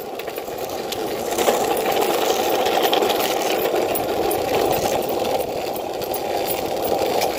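Longboard wheels rolling steadily over an asphalt path as a husky tows the board, a continuous rumbling whir that grows louder about a second and a half in as the board picks up speed.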